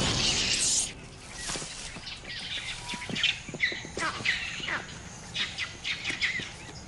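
Birds chirping in short, scattered calls over a quiet outdoor background. Music cuts out about a second in.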